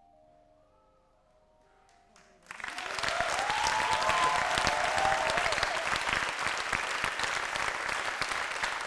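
Faint closing notes of soft, mallet-like music, then a theatre audience bursts into loud applause about two and a half seconds in, with cheering rising above the clapping.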